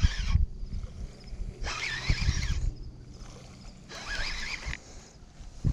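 Baitcasting reel cranked in three short bursts, its gears whirring, while a hooked bass is reeled in. A dull thump comes near the end.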